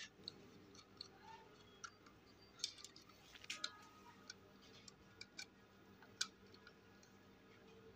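Near silence broken by about ten faint, scattered clicks and taps of plastic and metal as wires are fitted into the screw terminals of a small switch module.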